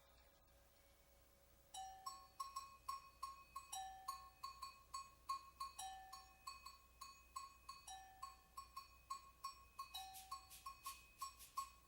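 A rhythm played on pitched percussion, such as bells or blocks, starting about two seconds in. Short ringing strikes on one note come at an even pulse of about three to four a second, with a lower note marking every two seconds. The strikes grow denser near the end.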